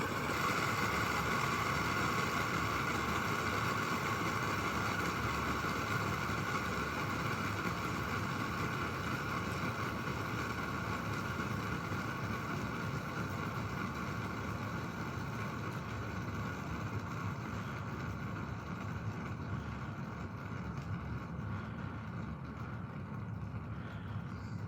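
A fidget spinner whirring on its bearing after a flick, gradually slowing and fading as it spins down.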